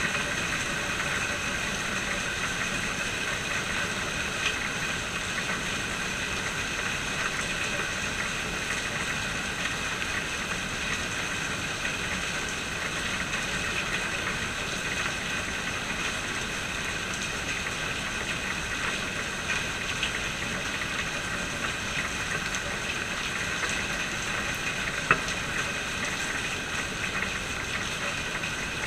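Steady rain falling: an even hiss with a few sharper drop ticks, the loudest about 25 seconds in.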